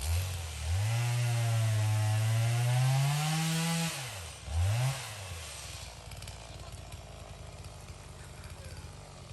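Two-stroke chainsaw revved hard from idle and held at high throttle for about three and a half seconds, its pitch rising, then let off, blipped once more briefly, and left idling.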